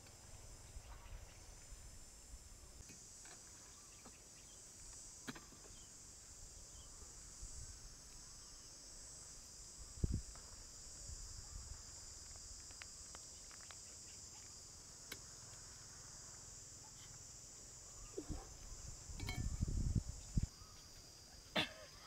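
Steady, high-pitched chirring of insects throughout. A single dull thump comes about halfway through, and a cluster of low thumps and scrapes near the end as cracked, dry mud is dug and broken up by hand.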